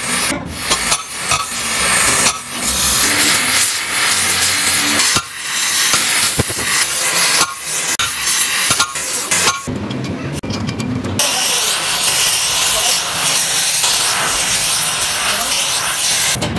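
Gas torch hissing steadily as it heats a truck suspension trunnion housing, with sharp hammer blows on a steel drift held against the housing. After about ten seconds the blows stop and only the torch's hiss remains.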